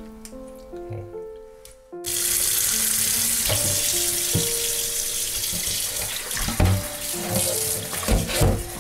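Kitchen tap turned on about two seconds in, water running steadily into a stainless steel bowl of whole fish in a metal sink as hands rinse them, with a few low thumps near the end.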